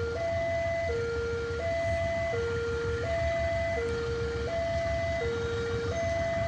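Electronic warning alarm of a railway level crossing, sounding a repeating two-tone signal that alternates a lower and a higher tone, each held about two-thirds of a second, to warn that a train is approaching. A low steady rumble runs underneath.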